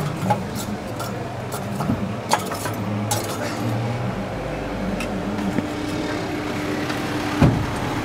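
Metal clinks and knocks as copper cezve coffee pots and metal tongs are handled over a charcoal grill, the loudest knock coming near the end as the pots go onto the coals. A steady low hum runs underneath.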